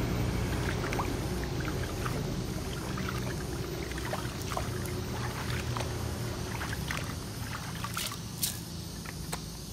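A hand stirring and swishing soapy water in a plastic washtub, mixing liquid detergent concentrate in until it is evenly dissolved. Steady sloshing with many small splashes and ticks, gradually getting quieter.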